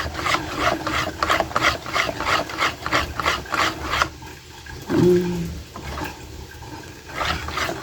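Wire whisk beating a thick carrot-and-flour pancake batter in a bowl: a quick, even scraping rhythm of about four to five strokes a second that stops about four seconds in.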